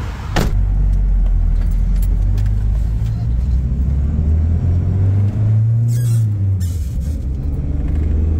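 1985 Toyota pickup's fuel-injected 2.4-litre four-cylinder heard from inside the cab, pulling away and accelerating; its note climbs, then drops about six seconds in as it shifts up. A sharp knock sounds near the start.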